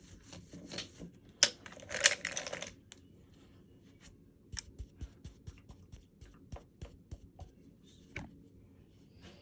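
Packaging being handled close to the microphone: a short burst of crinkling and rustling, then a run of light taps and clicks, about two or three a second.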